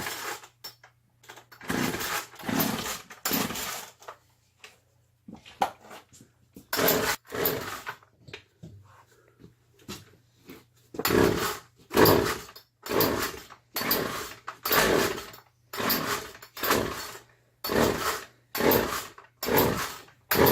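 Two-stroke chainsaw being pull-started over and over without catching: a rapid run of recoil-starter pulls, each a short rasp of the cord and the engine turning over. The pulls come in bursts, a few spaced out at first, then about one a second in the second half.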